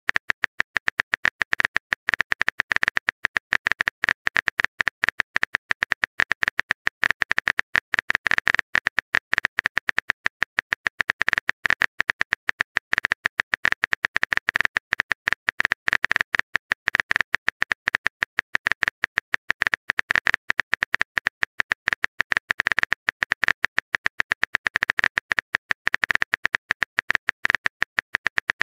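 Smartphone keyboard typing clicks: a rapid, unbroken run of short key-tap clicks, many per second, as a message is typed out letter by letter.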